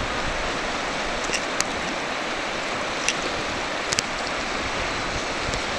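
River rapids rushing steadily, a wash of whitewater noise, with a few faint short clicks over it.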